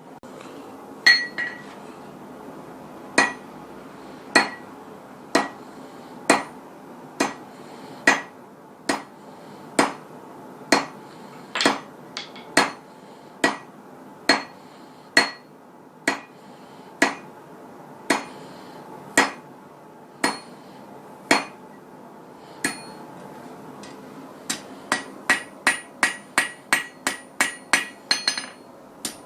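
A rounding hammer striking steel on an anvil while forging, about one blow a second, some blows ringing. The blows speed up to about three a second near the end.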